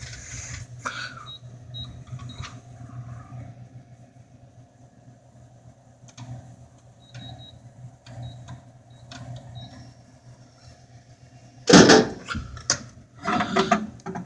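Snack vending machine dispensing: a steady motor hum with faint clicks as the coil turns, then a loud clatter about twelve seconds in as the candy bar drops into the bin, followed by more knocking near the end.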